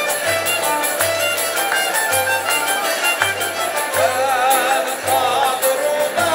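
Moroccan traditional ensemble playing, led by violins bowed upright on the knee, with low pulses about once a second.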